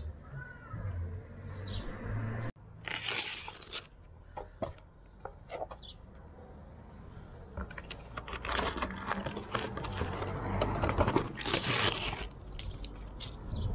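A plastic blister pack being opened and pulled off its cardboard backing: crackling plastic, tearing card and scattered sharp clicks. It grows busier and louder over the second half.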